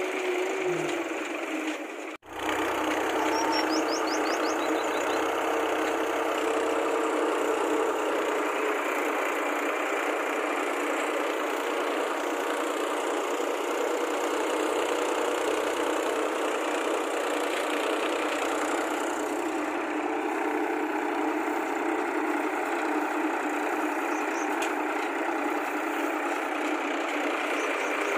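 A motor running steadily, with a brief cut about two seconds in.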